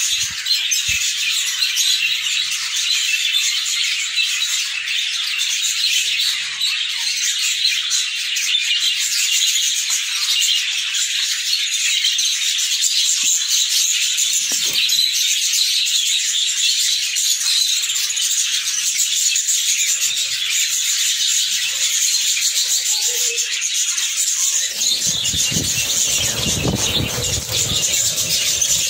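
A flock of budgerigars chattering and chirping in a dense, continuous warble. About 25 seconds in, a low rubbing rumble joins it for the last few seconds.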